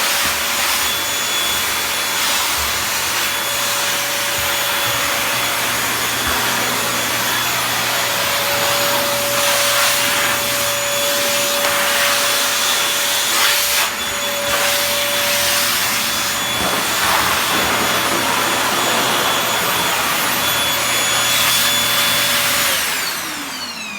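Vacuum cleaner running steadily with a motor whine over the rush of air, then switched off near the end, its motor winding down in falling pitch.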